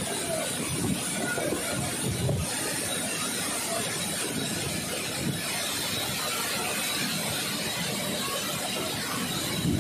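Belt conveyor loaded with iron ore pellets, running with a steady mechanical rumble and hiss.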